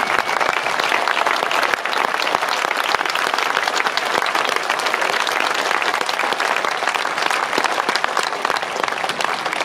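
Tennis spectators applauding a player with dense, steady clapping.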